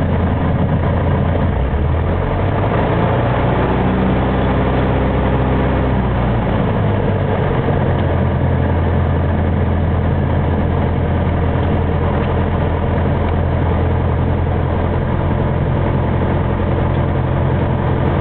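Aircraft engines running, loud and steady, during the landing; a cluster of engine tones shifts in pitch between about two and seven seconds in, then the sound settles.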